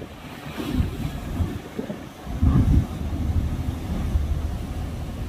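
Wind buffeting the microphone in gusts, loudest about two and a half seconds in, over the low rumble of a bus driving down a ferry's bow ramp.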